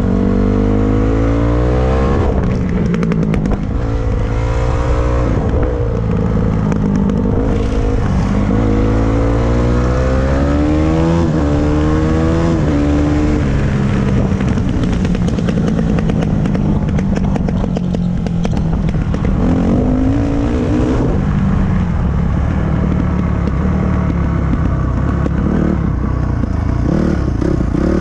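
Dirt bike engine under way, revving up through the gears: the note climbs several times and drops back at each shift, then settles into steadier running over the second half.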